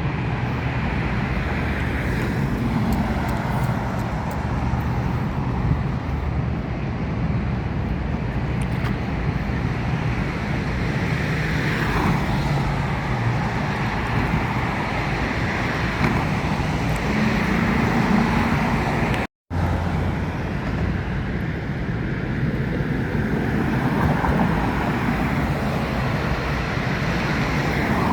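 Steady street traffic noise of passing cars, with a brief cut to silence about two-thirds of the way through.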